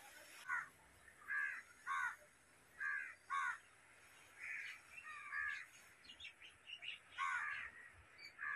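A bird calling repeatedly: about ten short calls, several in quick pairs, with short gaps between them.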